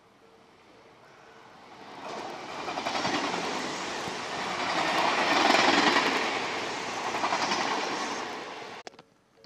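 Odakyu electric train passing a level crossing: it grows over about two seconds, is loudest around the middle with rhythmic wheel clatter, then cuts off abruptly near the end. The crossing's warning bell pulses faintly at the start.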